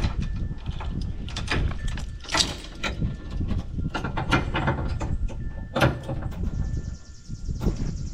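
Irregular metal clanks, knocks and rattles over a low rumble, typical of trailer hitch hardware being handled while a trailer is coupled to a truck.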